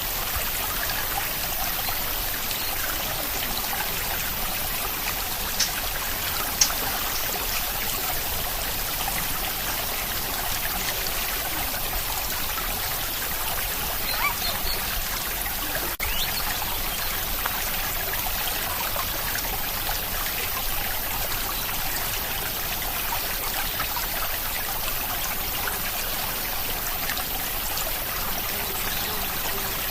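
Steady rain with water trickling and running. Two sharp drop-like taps stand out about six seconds in, and there is a brief dip at about the halfway point.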